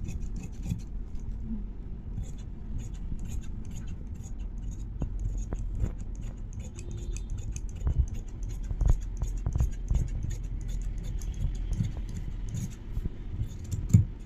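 Large tailor's shears cutting through layered dress fabric: repeated snips and the scrape of the blades sliding along the cloth. A few dull knocks as the shears and hands bump the table, the loudest near the end.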